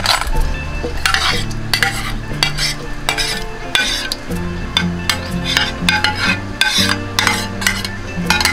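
A cooking utensil stirring and scraping in a wok of saucy seafood in shells, with irregular clattering strokes and a low sizzle from the pan.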